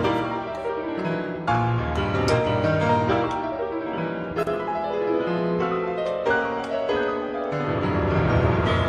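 Background piano music, a steady stream of notes with chords underneath.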